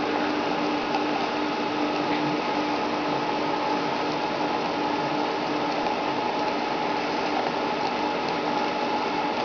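Water boiling in a glass test tube, bubbling steadily, with a faint steady hum underneath.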